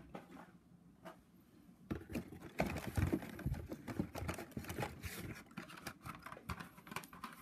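Carded plastic blister packs of Hot Wheels cars being handled, with a quick run of clicks, taps and crinkling that starts about two seconds in.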